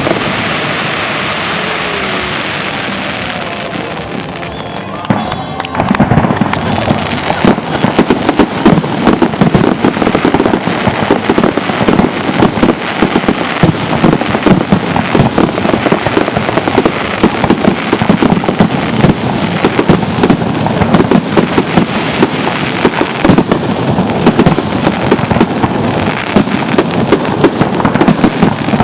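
Fireworks display: a fading crackle for the first few seconds, then a dense, continuous barrage of overlapping bangs from about five seconds in.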